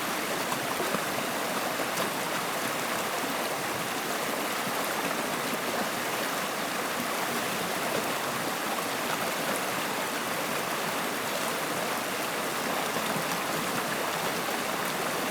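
Running water, flowing with a steady, even rush.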